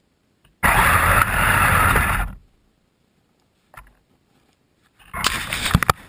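Kyosho Blizzard SR radio-controlled snowcat's electric drive and tracks running through snow, heard from a camera mounted on the vehicle: one loud burst of about a second and a half, then near the end a shorter burst with sharp clatters.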